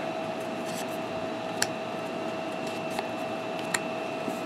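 Trading cards being flipped through by hand, giving a few short sharp clicks as cards are moved off the stack, over a steady background hum.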